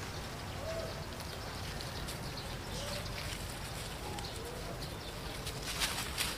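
Several short, soft cooing calls, each a brief rise and fall, spaced a second or two apart, from a dove or from the macaques. A brief burst of rustling and clicks about six seconds in is the loudest moment.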